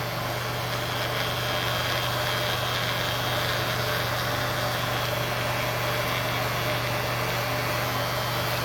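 Electric hair clipper running steadily with a low, even hum while its freshly sharpened blade is tested for cutting.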